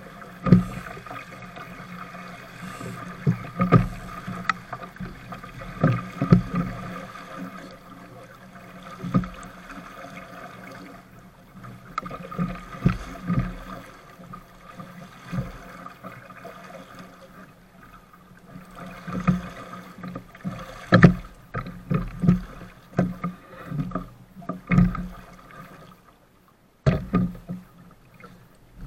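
Small sailboat heeled and moving through choppy water: waves slapping and splashing against the hull over the rush of water and wind on the camera microphone, with frequent irregular knocks. The sound drops out briefly near the end and comes back with a sharp hit.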